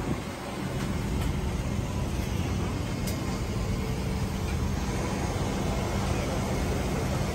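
Steady hum and air rush of an airliner cabin, with an even low drone.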